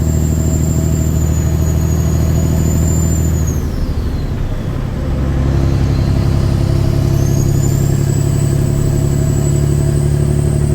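Caterpillar 6NZ truck diesel pulling, with a high turbocharger whistle over the engine drone. About four seconds in the whistle falls away and the engine note changes as a gear is shifted, then the whistle climbs back up over a few seconds as the turbo spools up again.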